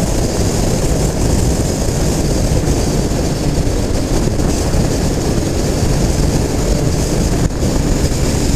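Triumph Street Triple 765 RS ridden at steady cruising speed: steady wind noise over the bike-mounted microphone, with the three-cylinder engine running underneath.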